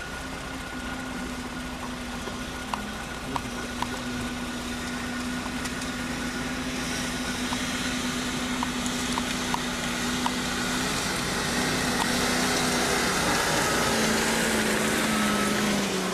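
Land Rover Discovery's 4.2 V8 with straight exhaust running steadily, getting louder through the second half, with a few sharp ticks along the way.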